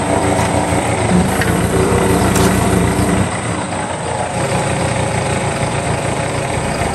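Yanmar mini excavator's diesel engine running steadily, its note shifting a couple of times as the hydraulic arm works.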